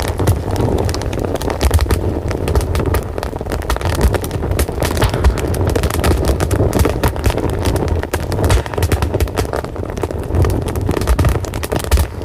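Wood fire crackling and popping steadily, with a dense run of sharp snaps over a low rumble.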